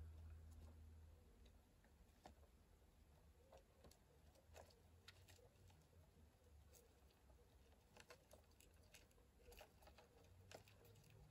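Near silence with faint, irregular small clicks and crackles: a giant rainforest mantis chewing a live baby red runner cockroach.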